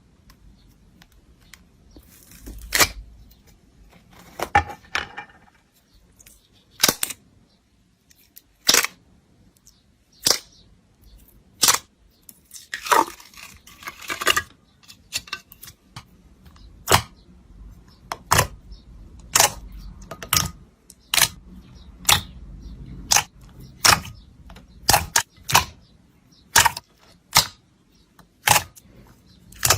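Slime being pressed and squeezed by hand, giving sharp pops and cracks as air pockets burst, roughly one a second, with a few stretches of softer sticky crackling in between.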